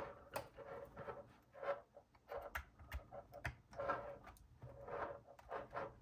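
Faint handling sounds as a USB cable is plugged into a mechanical keyboard: scattered light clicks and soft rustles.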